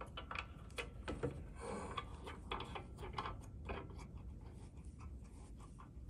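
Faint clicks and rubbing of plastic on plastic as a threaded 90-degree plastic elbow fitting with O-rings is worked by hand into the port of a reverse osmosis membrane housing. The ticks are scattered and irregular and thin out toward the end.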